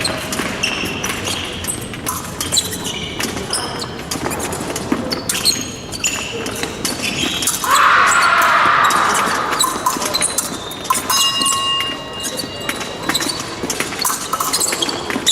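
Fencers' footwork during an épée bout on a piste in a large echoing hall: shoes squeaking and stamping with quick sharp knocks. About eight seconds in, a louder noisy burst lasts about two seconds.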